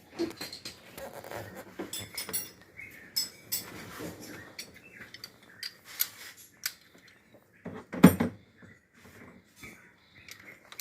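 Metal hand tools clinking and knocking while a bolt is worked loose on a car's starter motor, with a single loud clank about eight seconds in.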